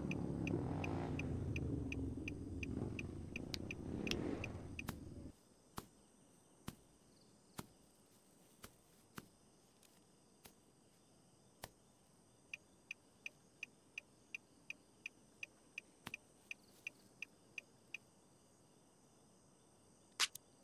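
A motorcycle or scooter engine running for about five seconds, then cutting off abruptly. After that, crickets chirp at about three chirps a second against a quiet night background, with scattered light clicks and one sharp click near the end.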